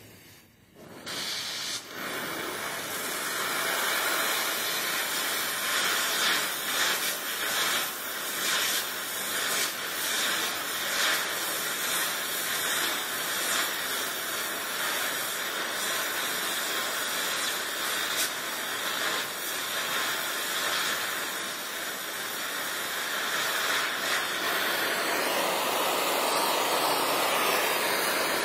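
Donmet 132A micro gas-welding torch flame hissing steadily as it heats and welds a steel pipe, with small crackles and pops throughout. It grows much louder about a second in.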